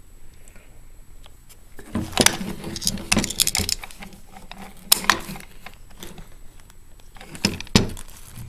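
Metallic clicks and rattles of a firearm being handled, in a busy run of sharp clicks starting about two seconds in and a couple more near the end.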